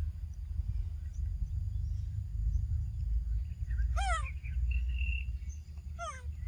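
Steady low rumble, with two short high-pitched calls that fall in pitch, about four and six seconds in.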